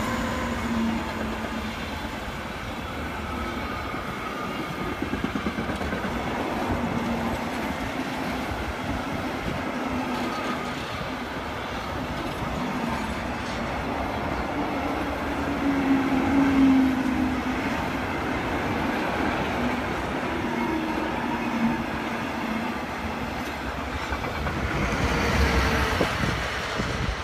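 Electric train running along the line: a steady rumble with a faint whine that wavers in pitch, swelling a little past the middle.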